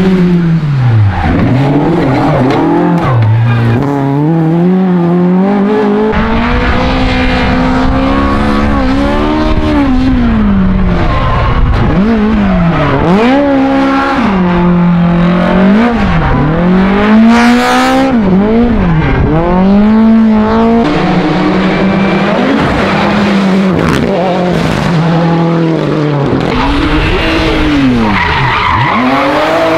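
Rally car engines revving hard and dropping back over and over as they change gear and lift off for corners, one car after another, with skidding and tyre squeal at times.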